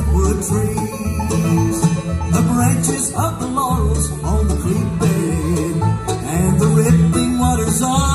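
A bluegrass band playing live: banjo, fiddle, upright bass, acoustic guitar and mandolin, with the upright bass pulsing steadily underneath.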